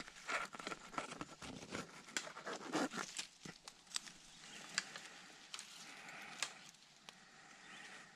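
Leafy bush branches rustling and crackling as hands pull and bend them to free a fishing line snagged in them. There is a dense run of crackles for the first three seconds or so, then a few single sharp clicks over fainter rustling.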